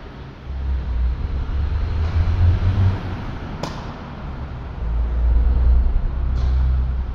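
Tennis ball struck by a racket, two sharp hits about three seconds apart, the second one fainter, over a heavy low rumble.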